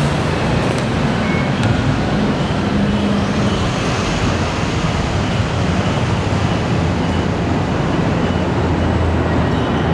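Steady background rumble and hiss of road traffic, reaching an open-air elevated station concourse.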